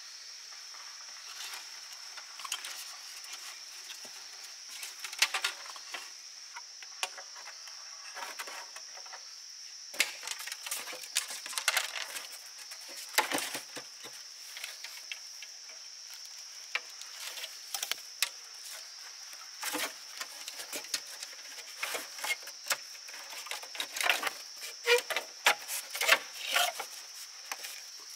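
Bamboo poles clicking, knocking and rattling as thin split-bamboo strips are threaded between them and pulled tight to lash a bamboo floor, in irregular clusters of taps and scrapes. Behind it, insects drone steadily at a high pitch.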